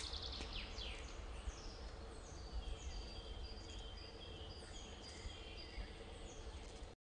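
Forest ambience with several small birds singing: repeated short high chirps and quick downward-sliding whistles over a low, steady rumble. It cuts off suddenly near the end.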